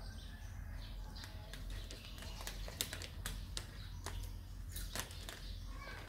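A clear plastic bag crinkling in sharp clicks as a kitten moves around inside it. The crinkling is thickest in the middle of the stretch, over a low steady hum.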